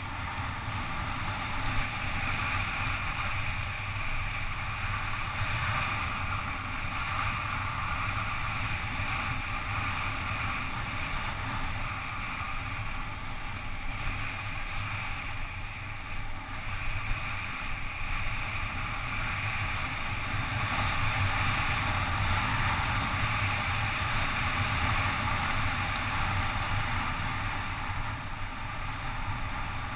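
Steady rush of wind over a helmet-mounted GoPro's microphone during a fast bicycle descent, with the hum of tyres on wet asphalt beneath it. Two brief knocks stand out, one near the start and one about halfway through.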